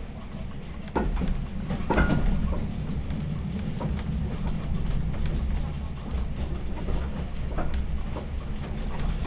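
Ride noise of the LNWR observation saloon coach running along the line behind steam: a steady low rumble of wheels on rail, with occasional sharp clicks and knocks, the strongest about one and two seconds in.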